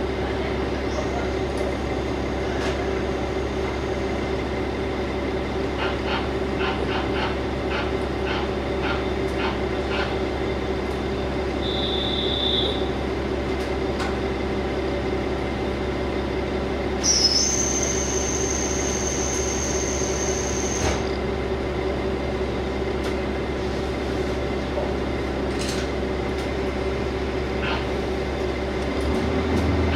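Steady drone of a KiHa 47 diesel railcar heard from inside the passenger cabin, with a low hum and a constant engine note. Thin high electronic-sounding tones come and go three times, the longest at about the middle. The low note shifts just before the end.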